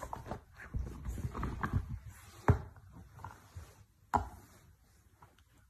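A Jack Russell terrier play-wrestling on a blanket: soft growls and fabric rustling, with two sharp knocks about two and a half and four seconds in.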